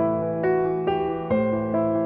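Background music on a keyboard, with gentle notes struck one after another about twice a second.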